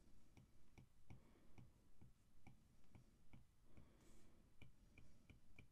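Near silence with faint, evenly spaced ticking, about two to three ticks a second, and a brief soft scratch about four seconds in.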